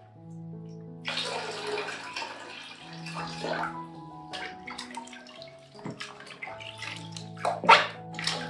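Water poured from a cup into a plastic tub around a cat being bathed, followed by splashing and sloshing as hands work the water over her, with a louder splash near the end. Background music with held notes plays throughout.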